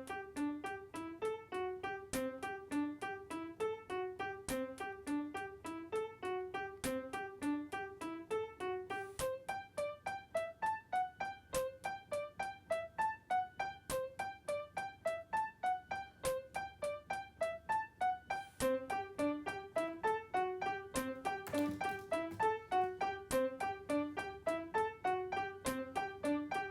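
Background piano music: a steady run of quick, evenly spaced notes.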